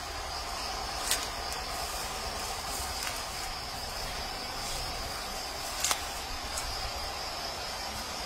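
Steady high-pitched chirring of field insects, with a low rumble underneath and a few sharp clicks, the clearest about one second in and just before six seconds.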